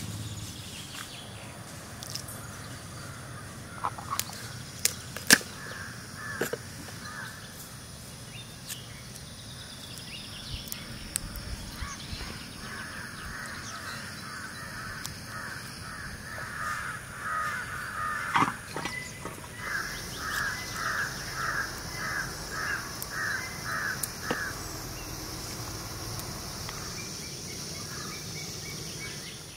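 A bird calling in a long run of repeated notes, about two a second, with a shorter run earlier. A few sharp clicks stand out, the loudest about five seconds in.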